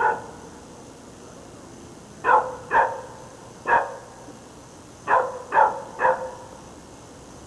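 Dog barking: six short barks in loose groups of two, one and three.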